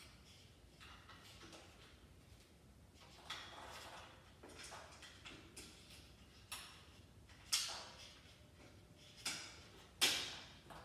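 Hand tools and hardware being worked while a bolt and nut are fitted: a handful of sharp clicks and knocks, irregularly spaced, the loudest near the end.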